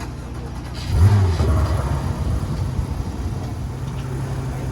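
Porsche 911 R's 4.0-litre flat-six catching on a cold start about a second in with a brief rev flare, then settling into a steady idle.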